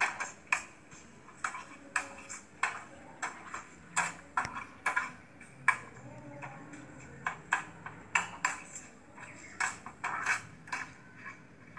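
Metal spatula scraping and knocking against a kadai while stirring frying masala paste: irregular clicks and scrapes, a few a second.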